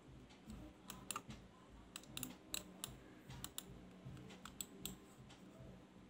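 Faint, irregular light plastic clicks and taps, about a dozen, from a Zebronics Transformer-M gaming mouse being handled and set down on its mouse pad.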